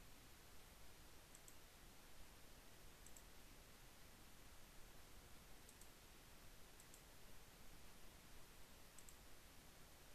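Faint computer mouse clicks, five of them spread across the stretch, each a quick double tick, over the low steady hiss of an otherwise near-silent recording.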